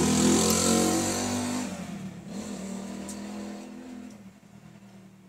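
A motor vehicle's engine revving as it goes by, loudest in the first second and a half, then fading away over the next few seconds.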